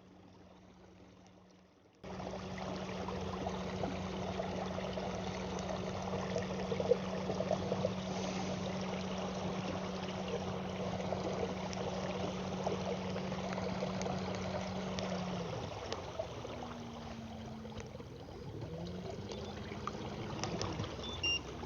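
Water rushing and trickling along the hull of a moving kayak, starting suddenly about two seconds in, with a steady low hum. The hum stops about two-thirds of the way through, leaving the water noise and a few wavering tones.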